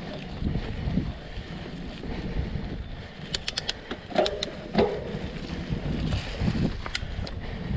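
Mountain bike rolling along a dirt singletrack covered in dry leaves: a steady rumble of tyre and wind noise on the camera microphone, with a quick run of sharp clicks and a couple of louder knocks a little past halfway.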